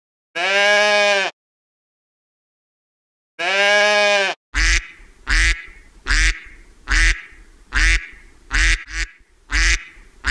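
A goat bleating twice, two long calls about three seconds apart, followed by a mallard duck quacking over and over, about one quack every three-quarters of a second.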